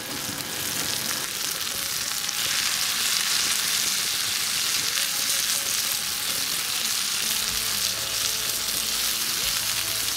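Broccoli frying in a cast-iron skillet: a steady sizzling hiss that builds over the first couple of seconds, then cuts off abruptly at the end.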